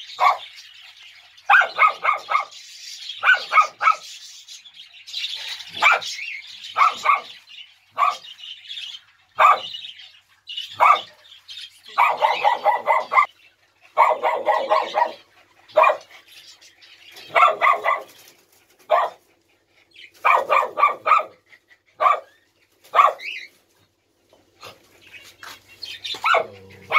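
Small long-haired dogs barking, a quick run of yaps every second or two.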